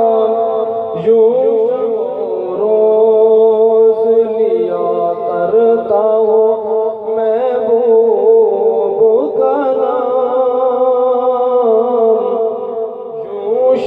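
A naat, Islamic devotional poem, sung by a solo voice with long, wavering held notes over a steady low drone.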